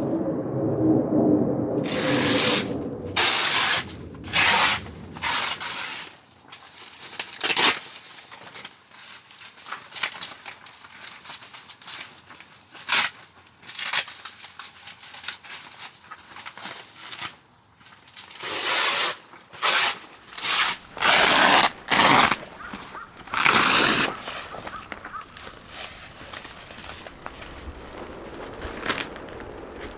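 Irregular short bursts of rustling and crinkling, each under a second or so, coming in clusters with quieter gaps between.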